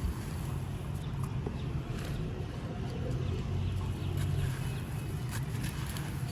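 Gritty grey concrete being crumbled by hand, with scattered small cracks and crunches over a steady low rumble.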